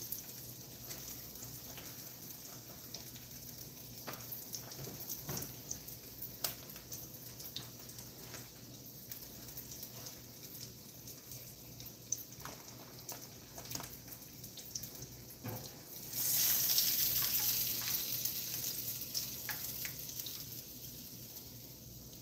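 Catfish and a hush puppy cake frying in hot oil in skillets, a steady sizzle with small pops and crackles. About 16 seconds in the sizzling surges louder, then slowly dies back down.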